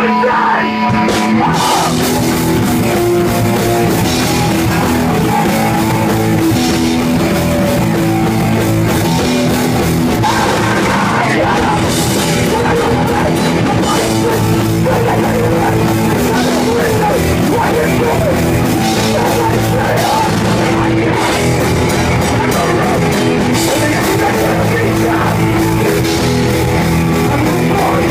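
Rock band playing live, loud and steady, with guitar and drum kit. A held note gives way to the full band about a second in.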